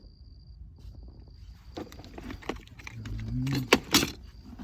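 Sharp plastic clicks and knocks from a newly wired ARB compressor rocker switch being pressed and handled to test its lights; the two loudest clicks come close together near the end. A faint steady high-pitched tone comes and goes underneath.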